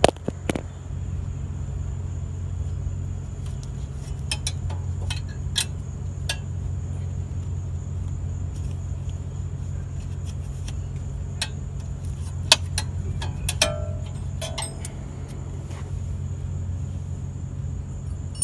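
Scattered small metallic clicks and clinks of the rear brake shoe hold-down spring, pin and gloved hands being worked to release the spring. Twice, about three-quarters of the way through, a small metal part rings briefly. A steady low hum runs underneath.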